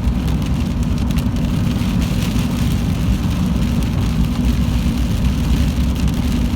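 Steady road and engine rumble heard from inside a moving car, with rain hissing and ticking on the body.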